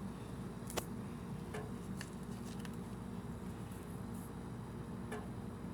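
Quiet room noise: a steady low hum with a few light clicks and taps.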